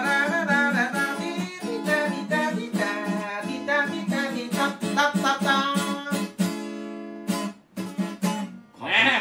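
Acoustic guitar strummed while a man sings a mor lam melody in Thai/Isan style. About six seconds in the singing stops and the song ends with a few last sparse strums.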